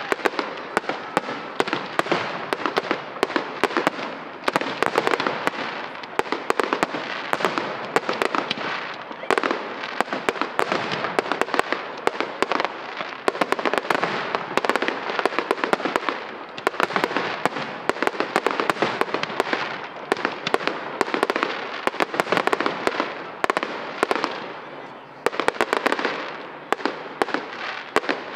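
Fireworks display: an unbroken barrage of aerial shells bursting in dense, rapid bangs, easing briefly about twenty-four seconds in before building again.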